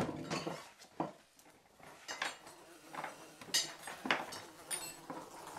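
Plates, glasses and cutlery clinking and knocking on a table as it is being set: a string of short, irregular clicks and clatters.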